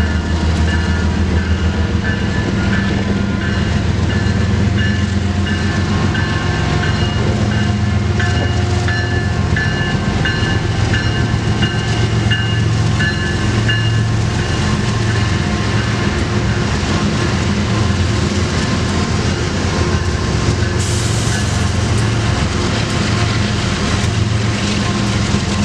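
Freight train pulling out: diesel locomotives running with a steady low drone as the cars roll by. Over about the first half, a high whine sits on top of the drone.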